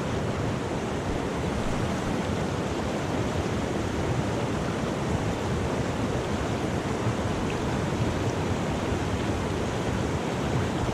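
Steady rush of a fast-flowing spate river, raised by rain, with no breaks or single events.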